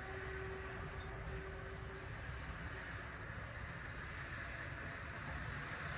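Ceiling fan spinning with a faint, steady whir and low rumble; a faint hum drops out about two seconds in.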